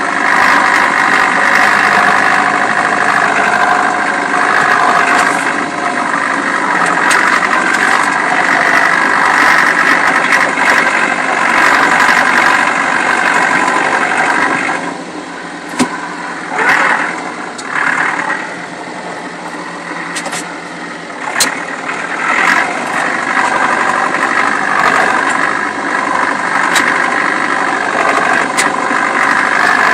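Tractor engine running steadily as the tractor drives through deep snow. About halfway through it drops back and runs quieter for several seconds, then picks up again, with a few sharp clicks and rattles over it.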